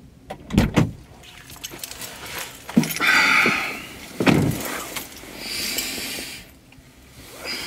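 Handling noises of a person climbing into a car's driver seat: a few dull thumps and knocks, with clothing rustling and keys jangling.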